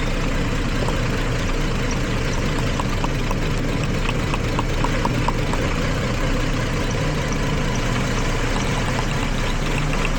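Jeep Liberty V6 idling rough with a misfire, and a run of quick, sharp ticks from about two and a half seconds in for some three seconds, and again near the end: ignition spark jumping and arcing from a coil boot where water has got in.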